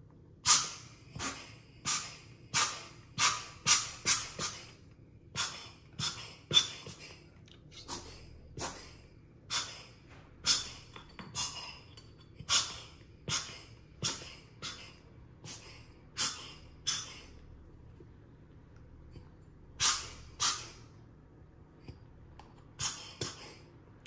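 Hand air blower squeezed again and again to puff coffee grounds out of hand coffee grinder parts: a couple of dozen sharp puffs of air, about one or two a second, with a pause of a few seconds about three-quarters of the way through.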